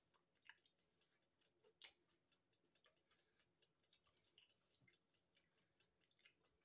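Near silence with faint, irregular mouth clicks and soft crunches of chewing a battered sausage, one slightly louder click about two seconds in.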